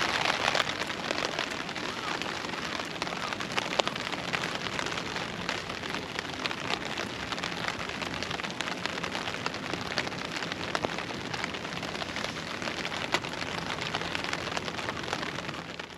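Wood fire burning in a small solo fire stand: a steady hiss scattered with many small, sharp crackles.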